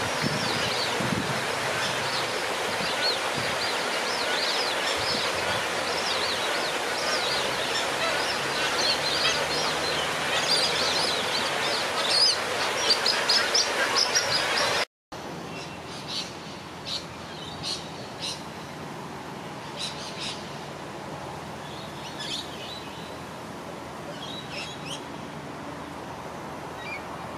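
Many small birds chirping and twittering over steady outdoor background noise. About halfway through, the sound drops out for an instant and comes back quieter, with only scattered chirps.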